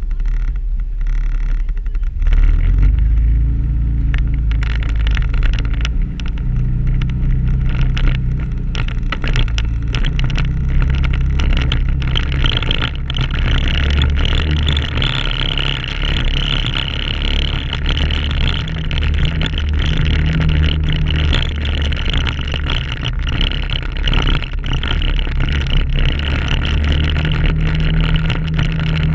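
Can-Am ATV engine running under way on a rough dirt trail, picking up speed about two seconds in, its pitch rising and falling with the throttle. Frequent knocks and rattles from the machine jolting over the bumpy ground.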